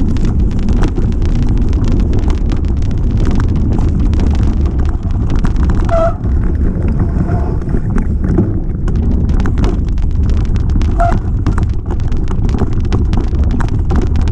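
Mountain bike riding fast over a rough trail: constant wind rumble on the microphone with rattling and sharp knocks from the bike over stones and roots, and a short squeak about six seconds in and again near eleven seconds.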